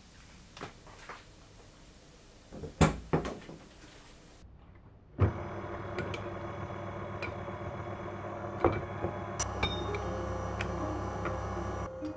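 Electric stand mixer switched on at low speed about five seconds in, its motor humming steadily with small clicks as the attachment turns through liquid and flour in a steel bowl. Before that come a few light clicks and knocks of a bowl being handled, the sharpest near three seconds in.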